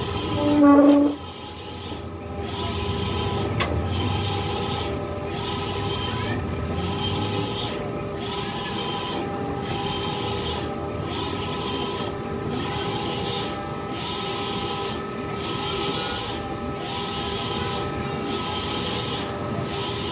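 Wide-format eco-solvent printer with an Epson i3200 print head running while printing tarpaulin: the print carriage shuttles back and forth in a regular rhythm, about one pass every one and a half seconds, over a steady machine hum. A short loud tone sounds just under a second in.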